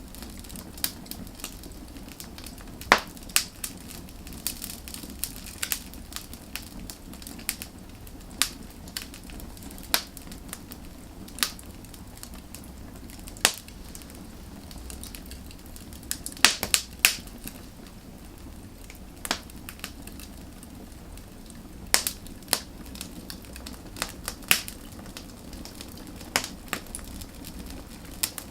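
Firewood burning, with a steady low rumble of the flames and irregular sharp crackles and pops of the wood, a few bunched together at times.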